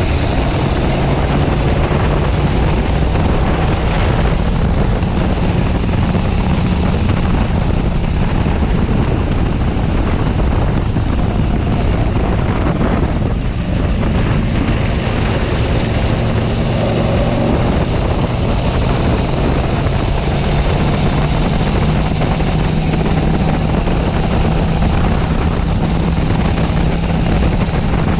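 Racing kart engine running hard, heard close from onboard, its note rising and falling with the throttle through the corners, with a short lift off the throttle about halfway through.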